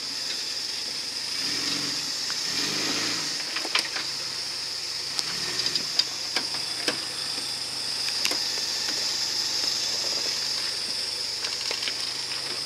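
Suzuki Samurai crawling slowly over rocks. Its engine note comes up briefly a couple of seconds in, with scattered knocks and clicks from the tyres and running gear on rock, over a steady high hiss.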